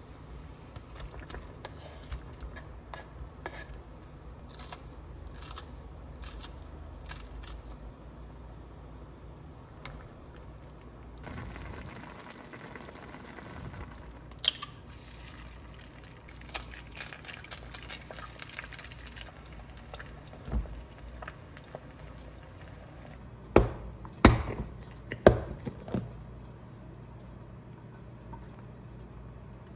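Kitchen cooking sounds: a run of light clicks and taps from utensils, a stretch of soft hiss, then a few sharp knocks about three-quarters of the way through.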